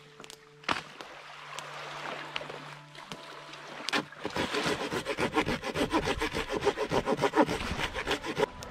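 Small hand pruning saw cutting through a dead log. After a few knocks and rustles, fast, even back-and-forth strokes begin about four seconds in and continue to near the end.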